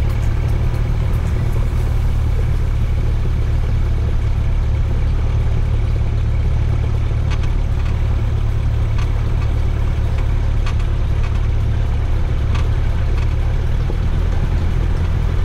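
Cessna 172's piston engine idling steadily as the plane taxis, a constant low drone with the propeller turning slowly.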